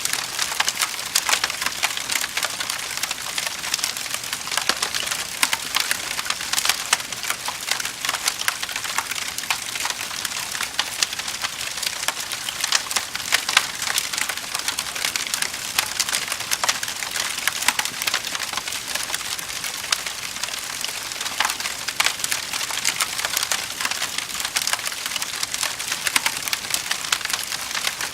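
Wood fire in a fireplace, crackling and popping steadily: a dense run of small sharp snaps over a soft hiss, with a few louder pops.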